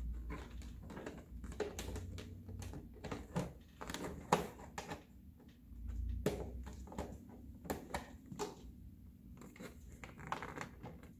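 Plastic roof pieces of an Ultimate Arendelle Castle toy playset being handled and pushed into place: irregular light clicks and knocks of plastic on plastic, with a few sharper clicks and low handling bumps.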